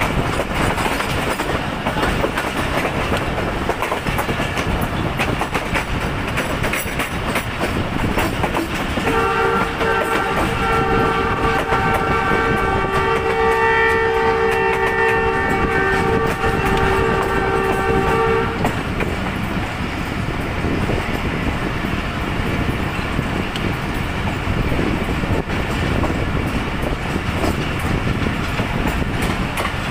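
Moving passenger train heard from a coach window: steady rumble and clatter of the wheels on the track. About nine seconds in, the locomotive's horn sounds one long blast of about nine seconds, a chord of two close notes, then stops and the running noise goes on.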